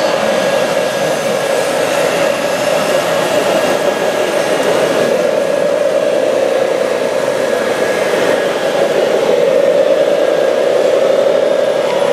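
Steady whirring hum of radio-controlled model trucks' electric drives, one pitch that wavers slightly between about eight and eleven seconds in.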